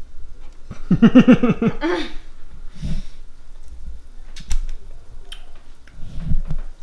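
A woman's brief wordless vocal sound, the loudest thing, about a second in. A few sharp wet mouth clicks and lip smacks follow midway as she licks sweet condensed-milk filling off her finger and tastes it, and there is a low murmur near the end.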